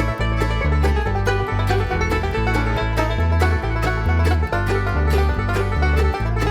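Background instrumental music with plucked strings over a bass line that steps along in a steady beat.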